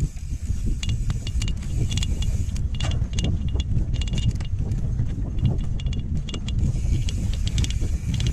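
Mountain bike rolling over a rough dirt singletrack, its chain and frame rattling in quick irregular clicks, with wind rumbling on the handlebar camera's microphone.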